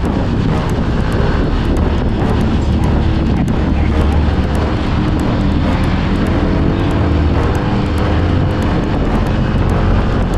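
Motorcycle riding at a steady speed: an even engine drone under heavy wind rush on the microphone.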